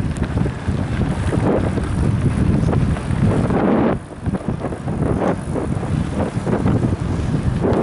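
Wind buffeting the microphone of a camera riding on a mountain bike, over the steady rumble and frequent small knocks and rattles of the bike rolling over a bumpy dirt track. The noise drops briefly about four seconds in.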